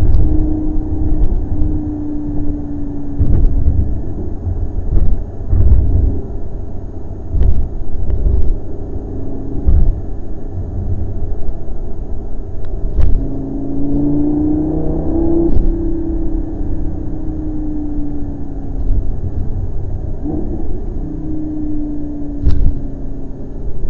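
Lamborghini Gallardo's V10 engine heard from inside the cabin while driving, over a low rumble of road noise. The engine note holds steady, then climbs in pitch as the car accelerates about halfway through, drops sharply and sinks, and briefly rises again near the end.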